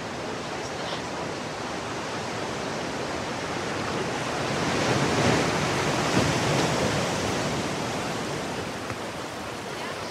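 Ocean surf: a steady wash of waves that swells to a breaking wave about five seconds in, then eases off.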